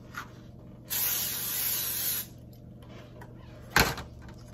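A hiss of cooking spray, lasting just over a second, greasing a disposable aluminium foil pie pan. A single sharp knock follows near the end.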